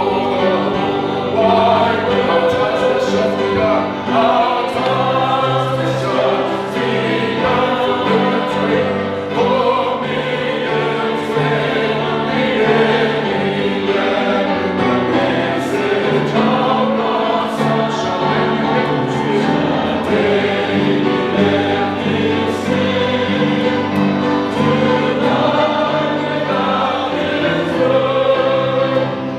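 Choir singing a hymn with instrumental accompaniment and a steady bass line underneath.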